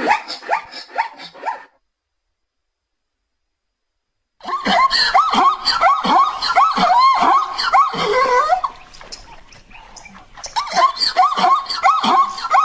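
Zebra barking: rapid runs of short, high, yelping calls. The first run cuts off after about a second and a half, and silence follows until a long run starts about four seconds in; that run eases near nine seconds and picks up again toward the end.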